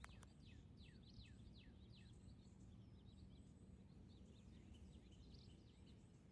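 Near silence with small birds chirping: a quick run of short descending chirps in the first two seconds, then scattered fainter chirps. There is one brief click right at the start.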